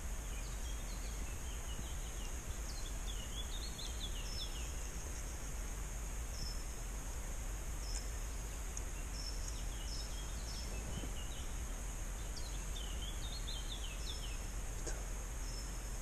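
A small songbird singing three short phrases of quick, high, falling chirps, over a steady outdoor hiss.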